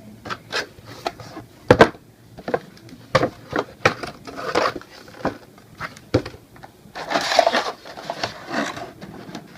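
Toy packaging being handled and pulled open: a run of sharp cracks and crinkles, the loudest about two seconds in, with longer rustles around four and a half and seven seconds.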